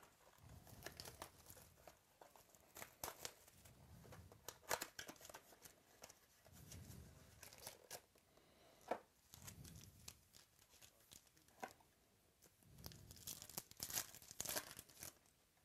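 Quiet handling of a cardboard trading-card box, then a foil card-pack wrapper crinkling and being torn open by hand, with scattered sharp crackles and soft taps; the densest tearing comes near the end.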